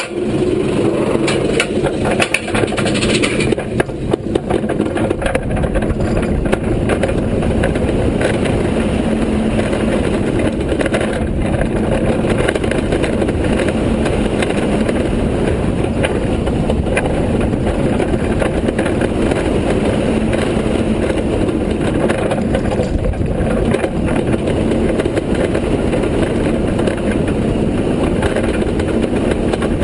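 B&M inverted roller coaster train at full speed: a loud, steady rush of wind and the wheels rumbling along the steel track, with a few short clicks and knocks in the first few seconds as it leaves the lift hill.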